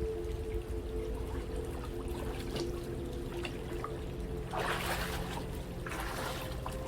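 Water trickling and splashing, with two louder splashes about four and a half and six seconds in, over a steady low hum.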